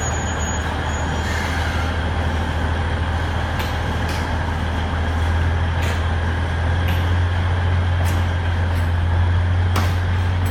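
Narrow-gauge diesel locomotive of an Alishan Forest Railway train running with a steady low drone that grows slightly louder about halfway through, with a few sharp clanks.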